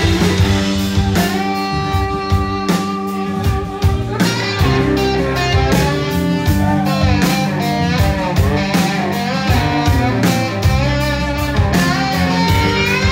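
Live blues-rock band playing an instrumental break: electric guitar lead with notes bending up and down, over a second guitar and a drum kit keeping a steady beat.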